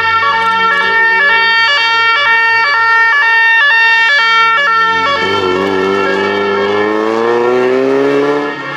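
Two-tone siren on a rally course car, switching between a high and a low note about twice a second. Past the middle the siren stops switching, and the car's engine rises steadily in pitch as it accelerates past and away.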